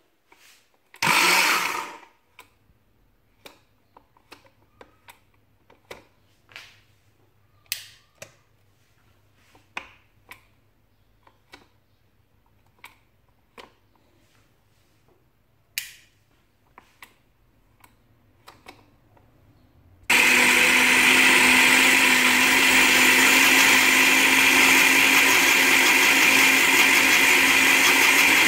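Countertop blender blending a mix of yogurt, sugar and milk powder: it comes on abruptly about two-thirds of the way in and runs loudly and steadily. Before that, scattered clicks and knocks, with a short loud burst about a second in.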